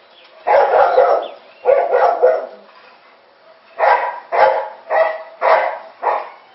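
Dog barking repeatedly: two pairs of barks, then a quicker run of five barks about two a second.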